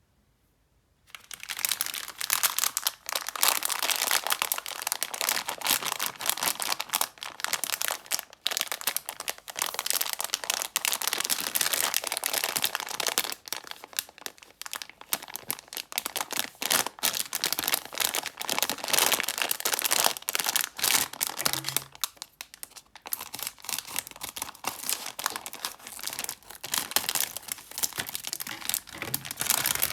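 Candy wrappers crinkling, rustling and tearing as candy is unwrapped, a dense irregular crackle that starts about a second in.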